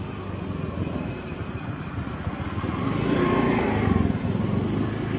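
A motor vehicle passing by, its engine sound growing louder to a peak about four seconds in, then fading.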